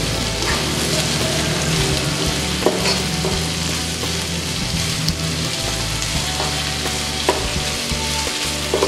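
Sliced chillies, shallots and tomato sizzling in hot oil in a wok as they are stir-fried with a metal spatula, with a few sharp scrapes and taps of the spatula on the pan and a steady low hum underneath.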